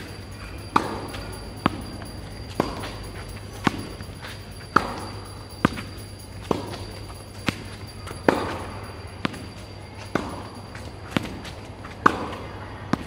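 Tennis ball struck with rackets in a steady forehand drill off a tethered tennis trainer, a sharp pop about once a second.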